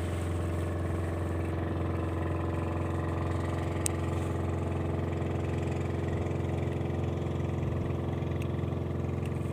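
Boat engine running steadily at an even low pitch, with one short click about four seconds in.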